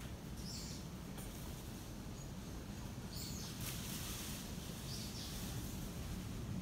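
Steady outdoor background noise under the tree canopy, with a few short, faint high-pitched chirps spread through it and one brief click near the middle.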